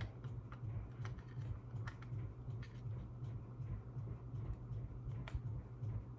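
Light, irregular clicks of plastic Lego pieces being handled and pressed together, with one sharper click about five seconds in, over a steady low hum.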